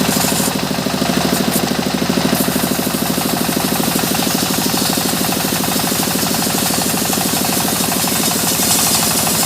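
Engine-driven sawmill saw running steadily, with a fast, even engine beat under a constant high hiss.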